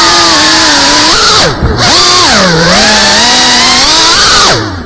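FPV quadcopter's motors and propellers whining loudly, the pitch rising and falling with the throttle. Twice the throttle is briefly chopped, about a second and a half in and near the end, and the sound drops away before it spools back up.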